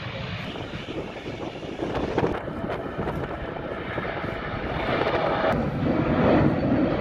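Jet airliner engines: a KLM Boeing 737 on the runway, then, after a cut about two seconds in, an Air France Airbus A320-family jet climbing out after takeoff. Its engine noise swells louder toward the end.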